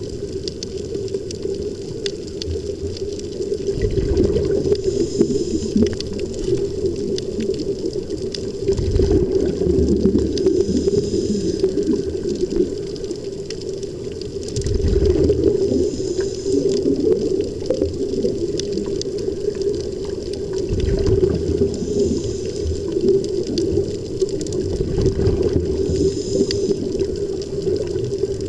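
Air bubbling and gurgling underwater from a surface-fed helmet-diving rig, over a steady hum. About every five to six seconds a surge of bubbles swells and falls back.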